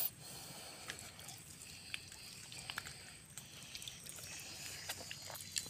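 Quiet wet-mud ambience with scattered faint small clicks and ticks.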